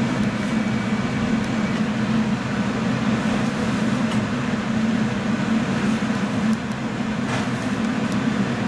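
Steady hum and rumble of an electric train, with a few faint clicks.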